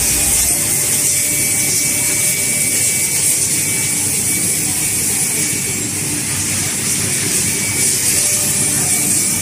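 Steady loud hiss with a faint high whine underneath, from a 5-axis CNC woodworking machine running as its spindle head moves.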